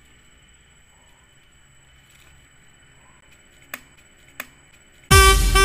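Two small clicks, then near the end a loud horn toot lasting about a second, a single steady pitch.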